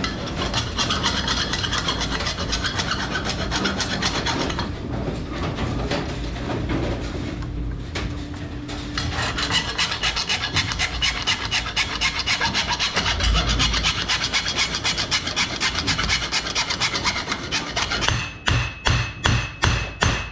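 Hand sawing metal with a hacksaw blade, cutting through a seized shaft and bearing at the wheel hub of an AMF 82-30 vertical ball lift. It is a continuous back-and-forth rasp. Near the end it turns into slower, distinct strokes, about two to three a second.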